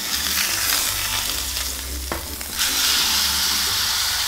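Beef brisket searing in a hot stainless steel roasting pan, sizzling steadily as its surface browns. There is a sharp click about two seconds in, and a little past halfway the sizzle grows louder as the meat is turned with tongs.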